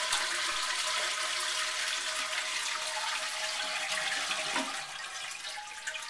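A Crane 3.5-gallon-per-flush toilet flushing with its water supply shut off: water rushes steadily out of the tank into the bowl and tapers off near the end, with no refill, as the tank empties.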